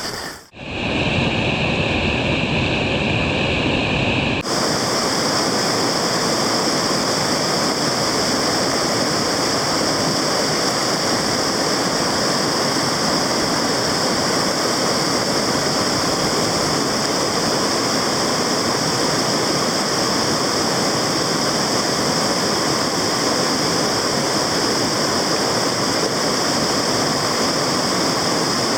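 Fast-flowing mountain river water rushing steadily over rocks. The sound breaks off abruptly about half a second in, changes character, then changes again at about four and a half seconds and stays even from there.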